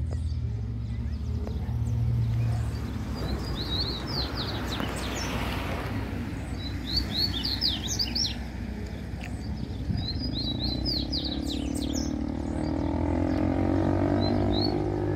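Wild papa-capim seedeater singing: short, quick twittering phrases repeated in four or five bouts. In the last few seconds a motorcycle engine comes in underneath, its pitch rising as it gets closer.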